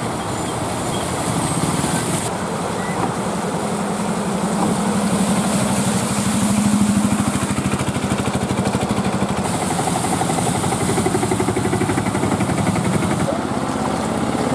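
Auto rickshaw engines running as three-wheelers drive through flood water, with the hiss and splash of water thrown up by the wheels. The engine hum swells a little around the middle, and the sound changes abruptly at several cuts.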